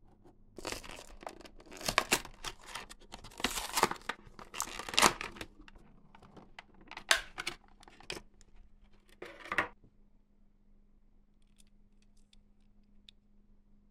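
Toy packaging being torn open and crinkled by hand: a run of sharp tearing and crackling strokes lasting about nine seconds, loudest in the first half, followed by a few faint clicks.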